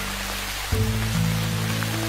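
Background music with sustained low notes that change about a third of the way in, over a steady hiss.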